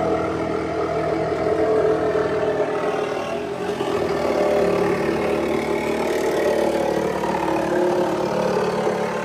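A motor running steadily: a loud drone of several pitches held together, drifting only slightly.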